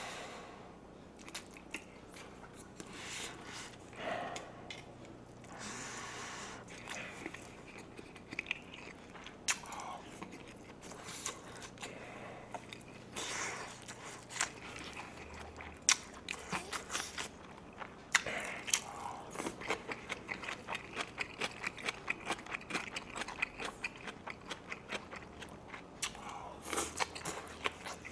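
A person chewing and crunching a mouthful of food close to the microphone, wet mouth sounds with sharp clicks; from about two-thirds of the way in, the chews settle into a steady rhythm of about two a second.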